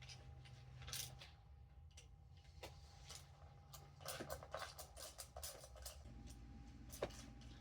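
Faint metallic clicks and clinks of a hand socket wrench working loose the 8 mm valve cover bolts on a 7M-GTE cylinder head. A quicker run of clicks comes about four seconds in, and a single sharp click near the end.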